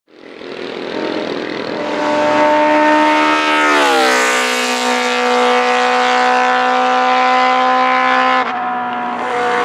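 Classic Honda racing motorcycle with open megaphone exhausts running hard at high revs as it passes, the engine note swelling in and then dropping in pitch as it goes by. The note holds steady afterwards and jumps abruptly near the end.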